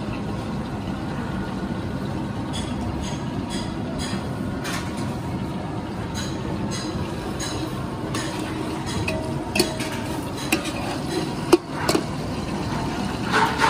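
Steady road-traffic noise around a street food stall. In the second half, a metal ladle knocks and clinks a few times against an aluminium cooking pot of sliced onions in ghee.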